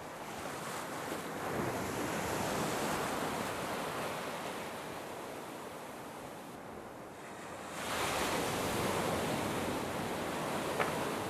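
Ocean surf breaking and washing around a small boat's hull in shallow water, swelling and ebbing, with a fresh surge of whitewater about eight seconds in.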